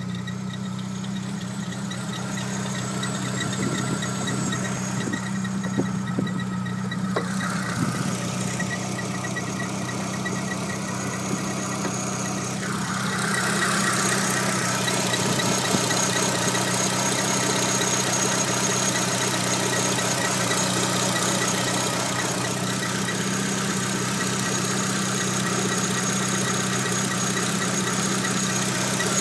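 Renault Clio II RS 182's four-cylinder engine idling, with a suspect squeal from the engine that the owner calls a bad squeal. The noise grows louder about halfway through.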